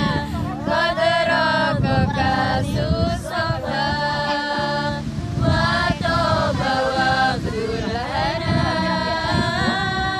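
A group of women singing sholawat, Islamic devotional songs, together without a microphone, in long drawn-out phrases of held notes.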